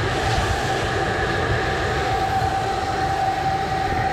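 Pressure washer running steadily, a constant whine over a dense rush of noise.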